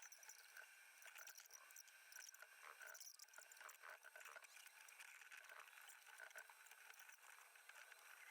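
Near silence, with faint scattered small ticks and handling noises.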